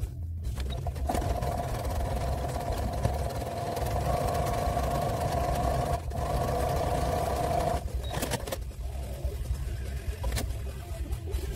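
Sewing machine running, a steady motor whine that starts about a second in, breaks off for a moment around six seconds and stops near eight seconds. A few sharp clicks follow as the work is handled.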